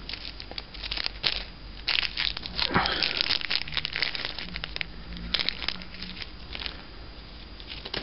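Foil-and-plastic blister packs of tablets crinkling and crackling as they are handled, in irregular crackles that are busiest around three seconds in.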